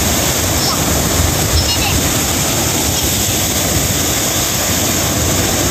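Small waves breaking and washing up a sandy beach: a steady rushing noise with a deep rumble underneath.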